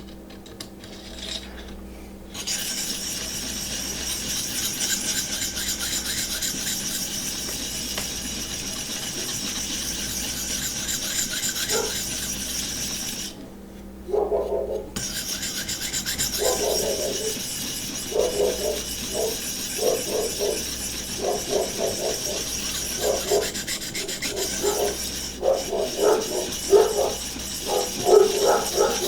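A 1200-grit sharpening stone on a Vipersharp guided system stroked along a steel knife edge to set the secondary bevel. It begins as a continuous rasping scrape, breaks off briefly about 13 seconds in, then turns into separate back-and-forth strokes at about one or two a second.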